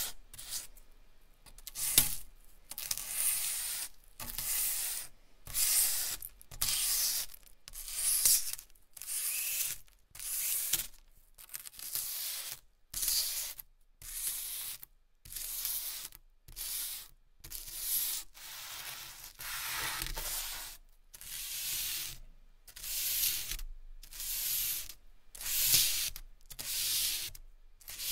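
Stick of pineapple charcoal scraped back and forth on smooth drawing paper in repeated strokes, about one a second, each a short scraping hiss with brief gaps between.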